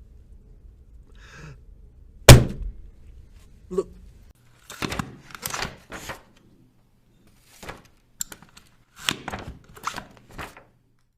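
Punch sound effects: one loud, sharp hit about two seconds in, then several quick clusters of shorter thuds and smacks.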